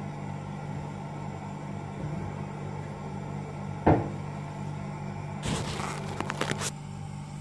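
A steady low hum with one sharp knock about four seconds in, then a short burst of clicking and clattering about a second and a half later: kitchen utensils or containers handled beside the stove while oil heats in a wok on the gas burner.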